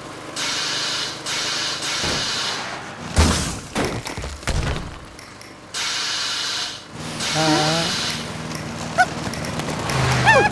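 Cartoon sound effects: blocks of hissing noise that start and stop abruptly, a few thumps in the middle, and short squeaky, wobbling character vocalisations near the end.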